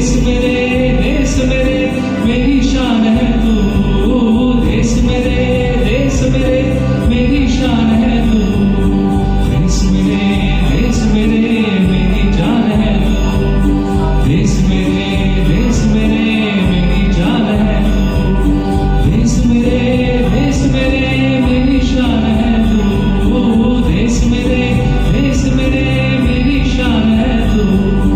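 Music: a Hindi song sung over a backing track, with a steady beat about once every second and a bit.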